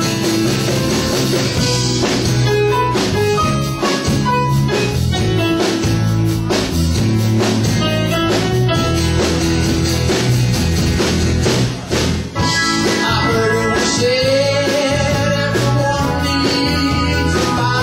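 Live rock band playing an instrumental passage: guitars over electric bass and a drum kit. About twelve seconds in the level dips briefly, then a lead line comes in with held, wavering notes.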